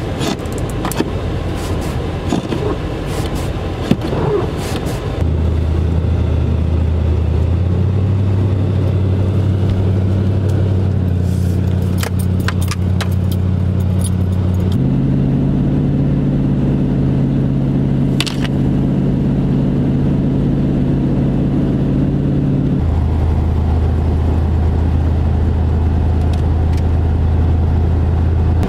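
A vehicle driving with its engine running: a few sharp clicks and rattles at first, then a steady engine drone that steps up in pitch twice and drops back down near the end, over road noise.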